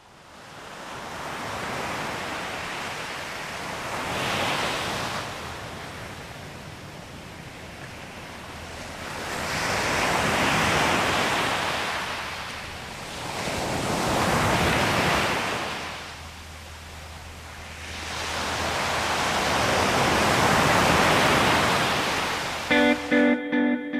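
Ocean surf breaking and washing up a sandy beach, swelling and fading in slow surges every few seconds, the loudest surge near the end. Just before the end the surf cuts off and plucked guitar music begins.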